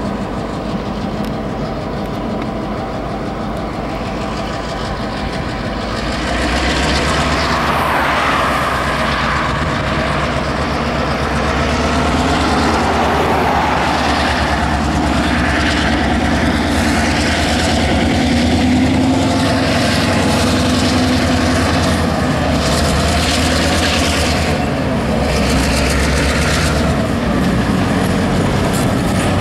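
Escanaba & Lake Superior diesel locomotive No. 400 rolling slowly past, its engine running steadily. The engine grows louder about six seconds in as the locomotive draws near.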